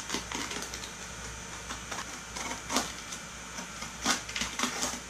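Utility knife cutting and tearing through the plastic wrap around a new scooter tire: a run of irregular scratchy cuts and crinkles, the strongest about three and four seconds in.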